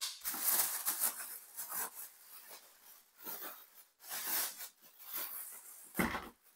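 Thin plastic bag crinkling and rustling in irregular bursts as it is pulled off a capsule coffee machine, with a short low thump near the end.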